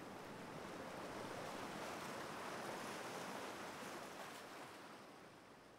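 Ocean surf washing on a beach, swelling to a peak and then fading away.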